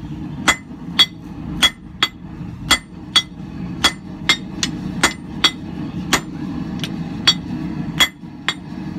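Heavy hand hammer striking red-hot steel on an anvil, about two ringing blows a second in a steady rhythm, as the work is turned with every stroke to draw out a square taper. A steady low hum runs underneath.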